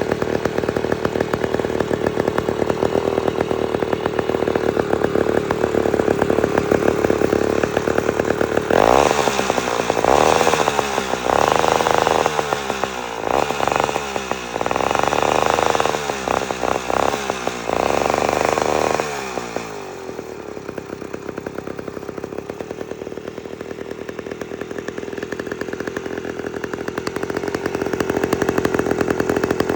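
A 1958 Wright gasoline reciprocating saw's engine is running. It runs steadily at first, then from about nine seconds in it is revved up in repeated choppy bursts for about ten seconds. It then drops back to a quieter steady run and picks up again near the end.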